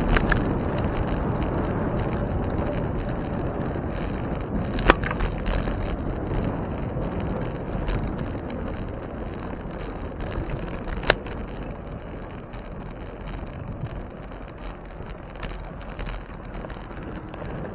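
Wind rushing over the microphone with the road noise of a bicycle in motion, easing off gradually toward the end. Two sharp clicks stand out, about five seconds in and about eleven seconds in.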